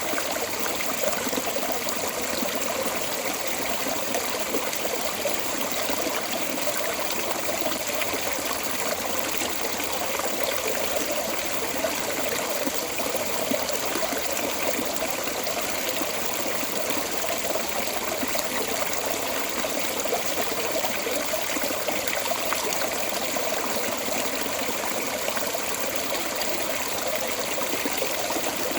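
Water pouring steadily out of a storm drain outlet: a continuous, even splashing flow.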